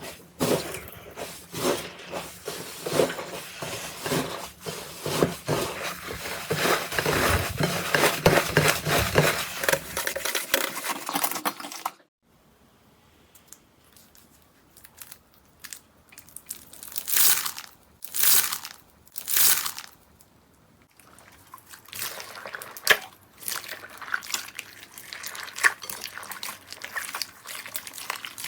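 Slime being squeezed and worked by hand: dense crackling and popping for about twelve seconds, then after a cut a few wet squelches, then more scattered crackling.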